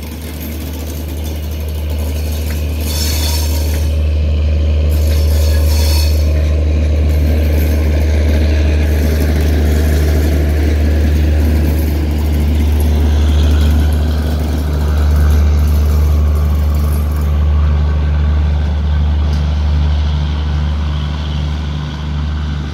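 Passenger train coaches rolling along the track, a steady low rumble with some high hiss in the first few seconds, as the rear of the train moves away.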